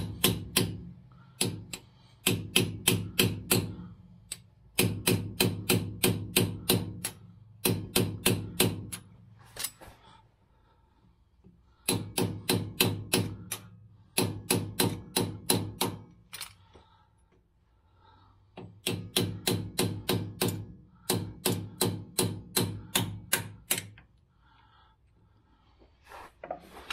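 Hammer driving a chisel against the metal-cased rear pinion seal of a Dana 44 differential, to lift the seal out. The blows come in quick runs of about six a second, each run a second or two long with short pauses between, and the housing rings under the strikes.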